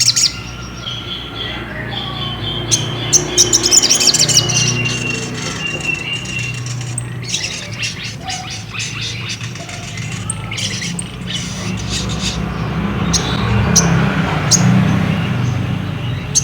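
Sogok ontong (ruby-cheeked sunbird) calling in quick, high chirping trills, with a long thin whistle sliding slowly down in pitch over the first few seconds. A steady low hum runs underneath.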